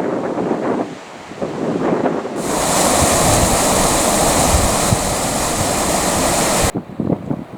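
Footsteps crunching through dry undergrowth, then, a little over two seconds in, the loud steady rush of a river that cuts off suddenly near the end.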